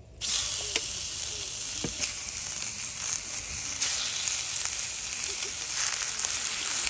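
Raw pork belly slices sizzling as they are laid into a hot cast-iron skillet. The frying starts suddenly as the first slices go in and keeps up steadily, with a few sharp crackles.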